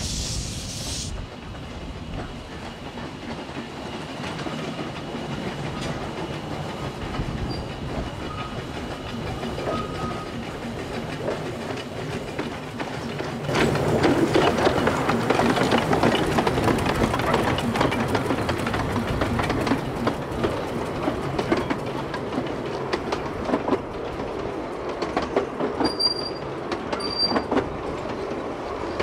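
Narrow-gauge steam locomotive and its coaches running past, the wheels clicking over the rail joints. The sound grows clearly louder about halfway through as the train draws close.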